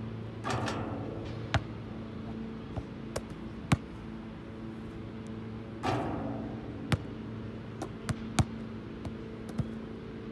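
A basketball bouncing on an asphalt court and striking the rim and backboard during free throws: scattered sharp knocks, the loudest a little under four seconds in, over a steady low hum. Two short rushes of noise come about half a second and six seconds in.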